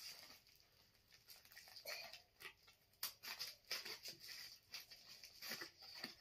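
Faint crinkling of a plastic mailer bag being handled and cut open with scissors: a scattering of soft clicks and rustles starting about two seconds in.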